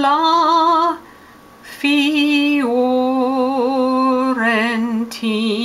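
A woman singing operatic mock-Italian without accompaniment, holding long notes with a wide vibrato. There is a short break about a second in.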